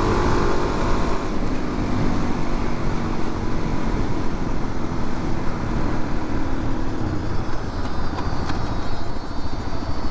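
Suzuki DR-Z400's carbureted single-cylinder four-stroke engine running steadily under way, heard from the rider's helmet with a heavy rush of wind noise.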